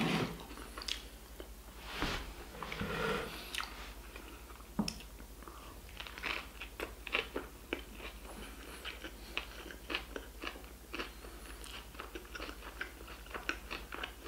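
A person chewing a mouthful of burger in a seeded bun, with many short wet smacks and small crunches in an irregular run, several a second.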